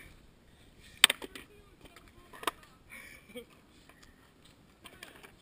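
Skateboard set down on concrete: one loud sharp clack about a second in, then a lighter knock about a second and a half later, with a few faint scuffs and taps.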